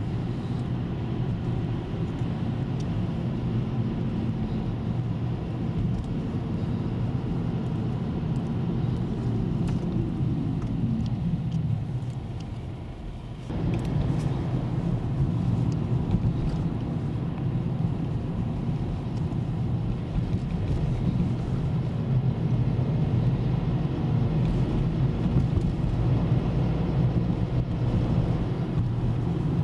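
Car engine and tyre noise from a moving car, a steady low drone. Its engine note falls as the car slows, then breaks off abruptly about 13 seconds in and resumes as a similar steady drone.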